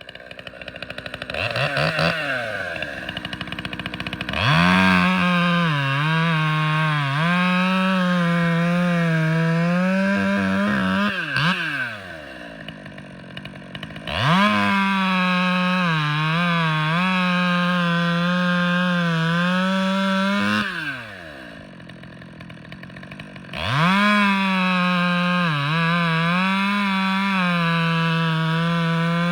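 Stihl 020T top-handle two-stroke chainsaw making test cuts: three long runs at full throttle, the engine pitch dipping and wavering as the chain bites into the wood, falling back to idle between cuts.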